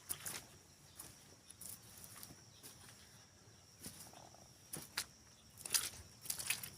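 Faint outdoor ambience: scattered short crunches and clicks, a few sharper ones past the middle, over a steady high-pitched whine.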